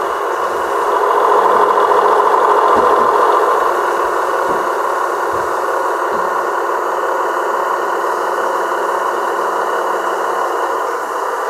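Gauge 1 model of a V 80 diesel locomotive, its onboard sound playing a diesel engine running as it pulls away. The engine sound swells for a few seconds near the start, then settles to a steady run, with a few faint knocks in between.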